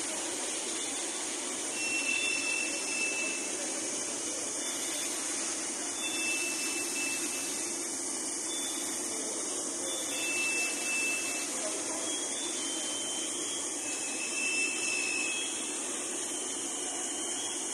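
Steady machine noise with a strong hiss. A short high whine comes back about every four seconds, as from machinery running a repeating cycle.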